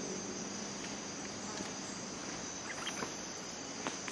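Steady, high-pitched insect chorus (crickets or cicadas) buzzing continuously, with a few faint short ticks about three seconds in.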